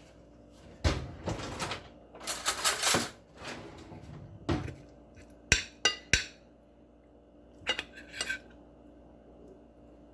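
Cutlery scraping and clinking against a plate, in short separate strokes with pauses between them. A few sharp clicks come about halfway through.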